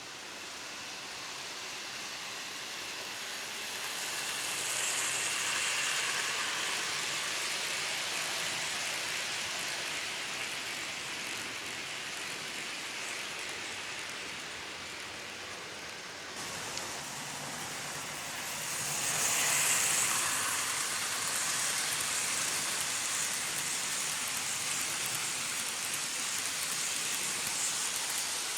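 Model train running along its track: a steady hissing rattle of wheels on rail that swells twice as the train comes close, about five seconds in and again near twenty seconds, with a sudden change in between.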